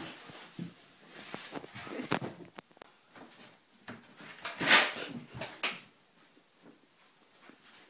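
Scattered knocks, clicks and rustling from people moving about, with one louder burst a little under five seconds in.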